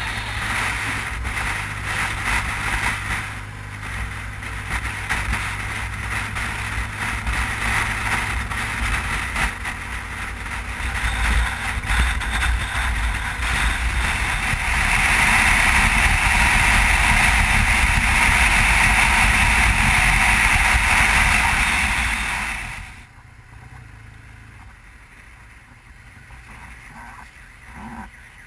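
Motorboat engine running steadily under a rush of wind and water, getting louder about halfway through. It then drops off suddenly about 23 seconds in to a much quieter background.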